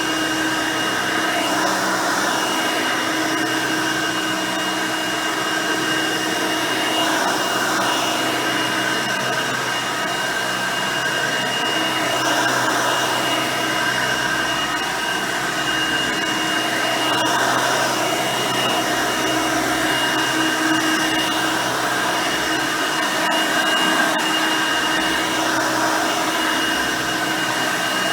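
Hoover Elite High Performance upright vacuum, with its 5-amp motor and 9-blade fan, running continuously with a steady motor hum and a high whine. The level rises and falls slightly every few seconds.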